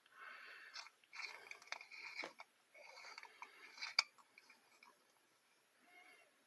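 Faint clicks and rattles of an old combination padlock being handled and dialled, with a sharper click about four seconds in.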